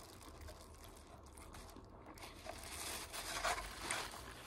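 A paper napkin rustling and crinkling as it is handled, in the second half after a couple of quiet seconds, loudest in two brief scrunches near the end.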